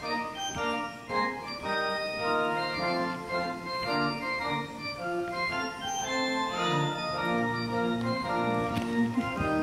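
Organ playing a short interlude of held chords under a moving melody.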